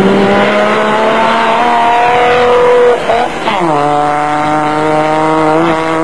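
Off-road racing pickup truck's engine under hard acceleration, its pitch climbing steadily. About three seconds in, the note breaks and drops sharply, then it runs on at a steady lower pitch as the truck drives away.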